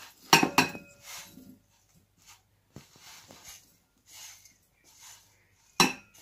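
A pan clinking against a glass bowl, twice in quick succession at the start and once more near the end, each clink ringing briefly. Between the clinks there is soft scraping and rustling as crumbly cooked rice-flour dough is scraped out of the pan into the bowl.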